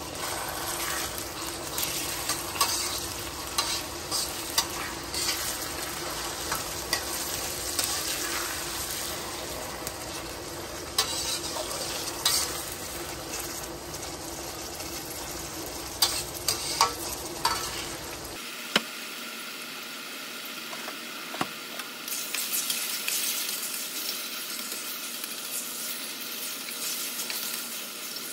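Oil sizzling in a metal karahi as a slotted metal spatula stirs moong dal and chopped vegetables through it, with irregular scrapes and clicks of the spatula against the pan. The dal is being fried in the oil before water goes in.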